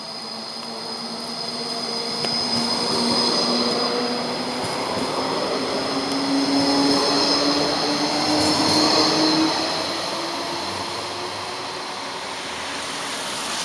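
Electric low-floor tram passing close by on curved track: rolling noise with a steady high-pitched wheel squeal and a low motor whine that rises slowly in pitch, loudest twice as the cars go by.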